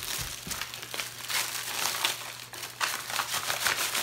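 Clear plastic packaging and small plastic bags of diamond painting drills crinkling as they are handled, a dense run of crackles.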